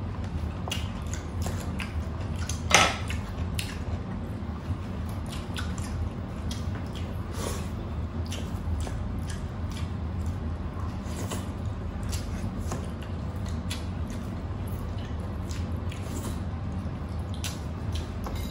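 Eating sounds: wet chewing and mouth smacks, with small clicks of fingers and food against plates from eating rice and beef shank by hand. One sharper click comes about three seconds in, over a steady low hum.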